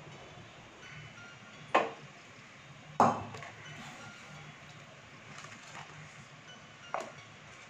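Three sharp knocks as a nonstick pan is tipped and tapped against a plastic container to empty out thick coconut barfi mixture. The middle knock, about three seconds in, is the loudest. A low steady hum runs underneath.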